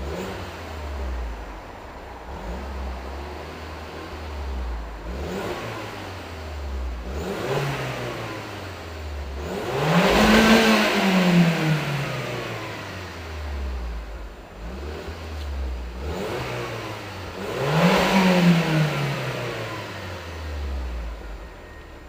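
Audi S3 8L's 1.8-litre turbocharged four-cylinder engine, through its stock exhaust, revved several times from idle. Smaller blips come in the first half, then two long rises, about ten and eighteen seconds in, are the loudest, each falling back to idle.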